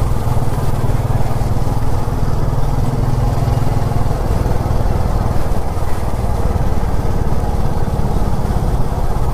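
Motorcycle engine running steadily while riding in traffic, with a continuous rush of wind and road noise over it.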